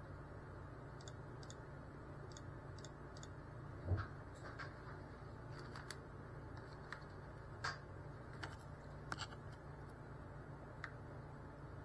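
Faint steady low hum with scattered small clicks and taps, and one louder knock about four seconds in.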